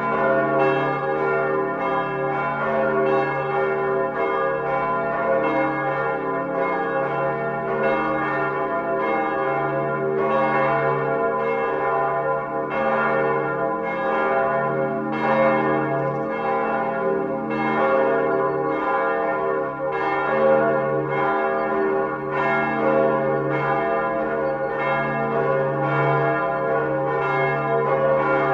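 Large church bell ringing, struck over and over in steady succession about once a second, each ring lasting into the next.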